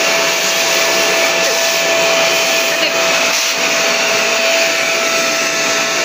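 Kent Vortex 15-litre, 600-watt wet-and-dry vacuum cleaner running steadily while it sucks cobwebs from a ceiling corner: an even rush of air with a constant whine.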